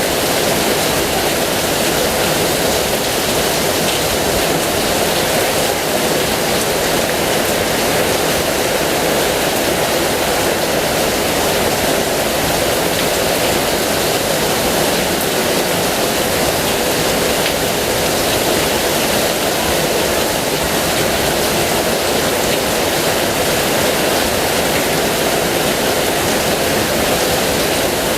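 Heavy rain pouring down in a steady, even hiss, with no change or let-up.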